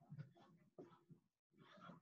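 Near silence, with faint, brief sounds cutting in and out.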